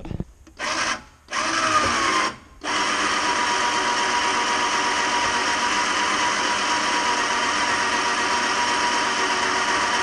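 Electric roof-lift winch of a Forest River Rockwood pop-up camper running, exceedingly loud, with a steady whine. It starts in two short bursts, then runs continuously.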